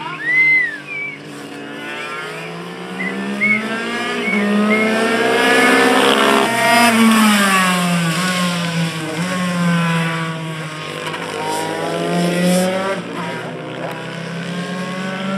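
Race motorcycle engines revving hard as the bikes accelerate and brake around the circuit, their pitch climbing and dropping repeatedly. One bike passes close about seven seconds in, loudest there, its note falling as it goes by.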